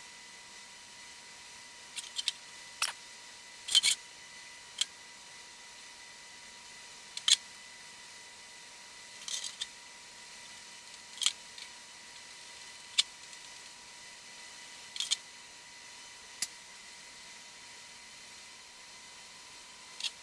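Scattered sharp clicks and light taps of small hard parts being handled, about a dozen of them, some in quick pairs. Under them runs a faint steady hum with a thin high tone.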